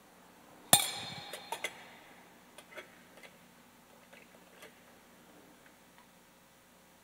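Altar vessels clinking: one sharp clink with a brief metallic ring about a second in, then several lighter clinks and taps. A cruet touches the metal chalice and is set down as wine and water are poured into the chalice.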